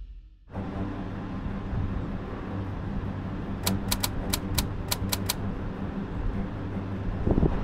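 Steady low hum of a car running, with a quick run of about nine typewriter key clicks a little under four seconds in, a typing sound effect.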